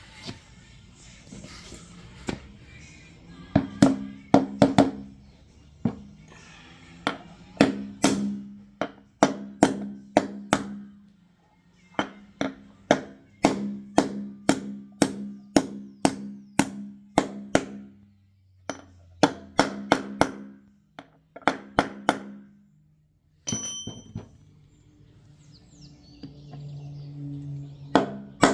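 Repeated hammer blows on metal, about two a second in runs with short pauses, each ringing on at a low pitch, as when driving a new ball bearing into a washing machine's drum assembly.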